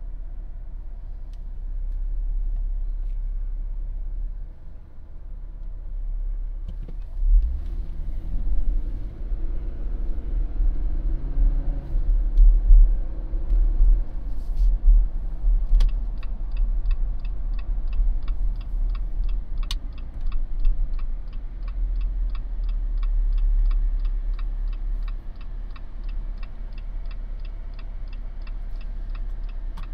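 Car cabin rumble from the Jeep on the move, with the engine note rising and falling as it gets under way about a quarter of the way in. From about halfway, the turn-signal indicator ticks steadily, about three ticks a second.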